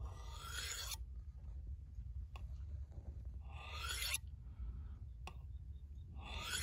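A knife's steel blade drawn along a metal honing rod: three long scraping strokes about three seconds apart, honing the blade's secondary bevel.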